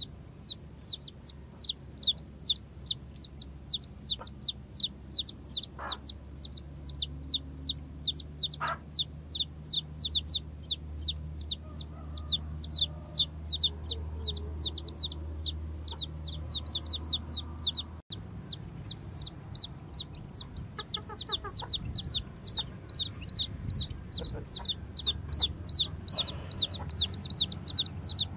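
Newly hatched chicks peeping without pause: a steady stream of short, high calls, each falling in pitch, several a second.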